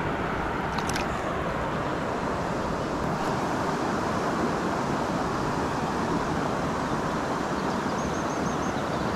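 Steady rush of flowing river water. A short run of faint high chirps comes near the end.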